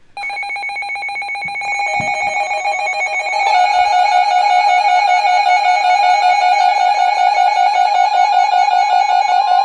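Weather radio receivers sounding their electronic warning alarm: a loud, wavering multi-tone alert that starts abruptly, with more tones joining about two seconds in and a jump in loudness about a second later. It is the alert that heralds an incoming severe thunderstorm warning.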